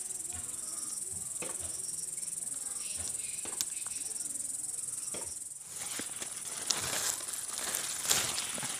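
Steady high chirring of insects in the vegetation, with leaf rustling and small sharp snaps as green chillies are pulled off the plants by hand. The rustling grows louder in the last few seconds.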